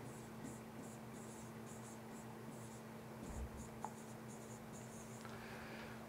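Faint scratching of a stylus writing on a tablet: a run of short, quick pen strokes that stop about five seconds in, over a low steady hum.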